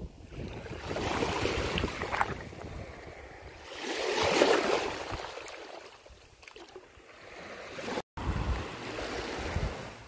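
Small ocean waves washing in and out through shallow water, swelling and fading three times with the loudest wash about four seconds in, over a low rumble of wind on the microphone. The sound cuts out for a moment just after eight seconds.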